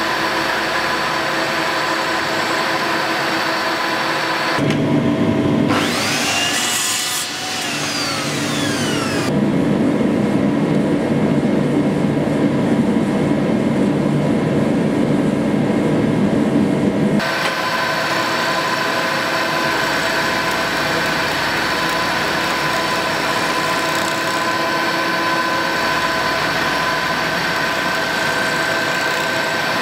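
Vertical milling machine drilling a small hole in a steel part, its motor and spindle running with a steady whine. From about five seconds in to about seventeen seconds in the machine gives way to another sound: tones gliding up and down, then a louder, lower rubbing and scraping as a wooden grip is worked onto a sword's tang.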